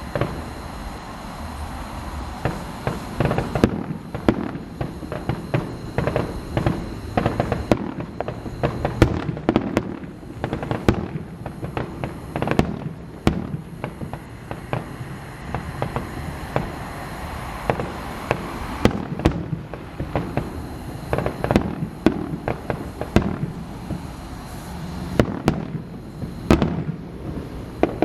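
Aerial fireworks display: a rapid, continuous run of bangs and crackling bursts, with clusters of sharp reports coming several times a second.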